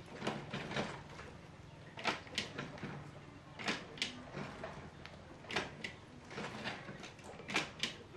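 Sharp knocks or clicks in pairs, a pair about every two seconds.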